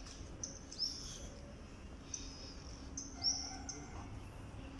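Birds chirping: several short, high chirps at irregular intervals, the loudest about three seconds in, over faint background hum.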